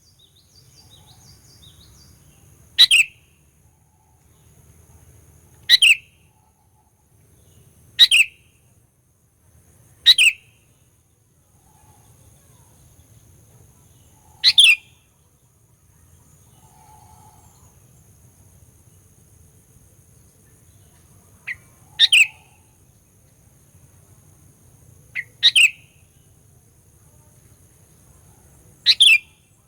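Sooty-headed bulbul (kutilang) giving short, sharp calls, each a quick falling note, eight times at uneven gaps of two to seven seconds, two of them led by a faint short pre-note. It is the bird's fighting call, used to stir up rival bulbuls.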